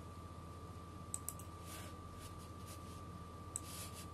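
Computer mouse clicks: two close together about a second in and another near the end. Under them runs a steady low electrical hum with a faint thin whine.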